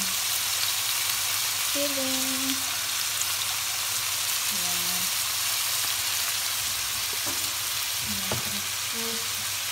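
Chicken pieces and potatoes frying in oil in a stainless steel pan: a steady sizzle, with a couple of light knocks near the end.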